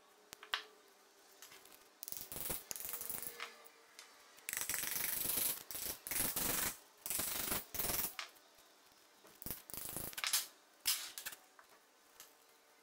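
A flat metal blade scraping against the painted metal housing of a hand-cranked grinder in several rough bursts, the longest lasting a few seconds, with sharp clicks of metal parts near the start and near the end.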